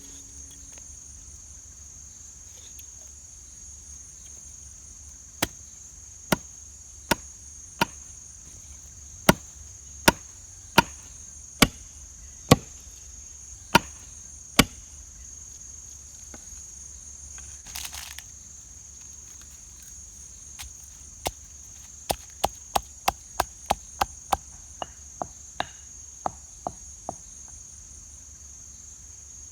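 Sharp chopping strokes of a blade on wood: about eleven slow, evenly spaced blows, then after a pause a quicker run of about fifteen at roughly three a second, getting lighter at the end. A steady high chirring of crickets runs underneath.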